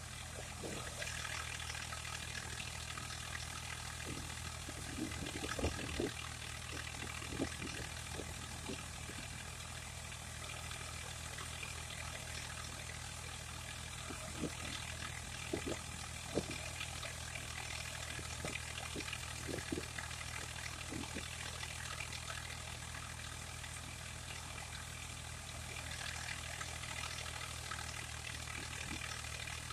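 Machinery engine running steadily, with scattered knocks and clicks, most of them in the middle of the stretch.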